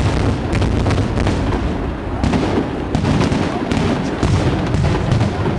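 Fireworks display in full barrage: many rapid, sharp cracks from bursting shells over a continuous low rumble.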